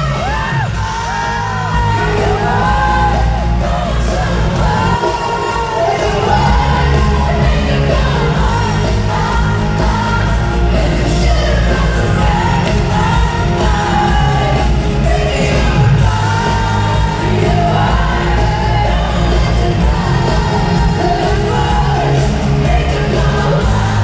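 A female pop singer singing live over her band's amplified music, filling a large arena.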